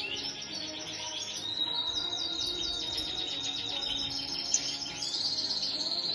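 European goldfinch song: a fast, continuous twittering of high chirping notes, with a long held high note about a second and a half in.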